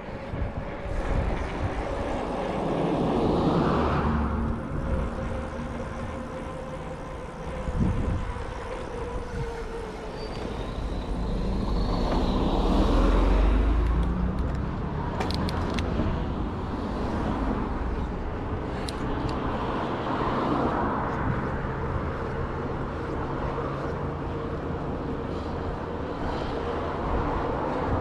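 Road traffic passing close by in a series of swells, the loudest a box truck going past about halfway through with a deep rumble. Wind noise on the microphone runs underneath from riding a bicycle.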